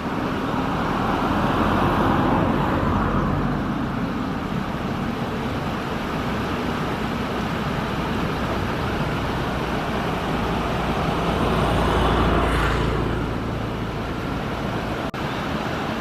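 Shallow mountain stream rushing steadily over rocks, a continuous wash of water noise that swells slightly about two seconds in and again near twelve seconds.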